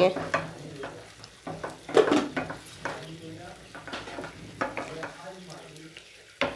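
Wooden spatula stirring and scraping beaten eggs through fried onions in a non-stick frying pan, in irregular strokes over a light sizzle of frying. A sharp knock comes near the end.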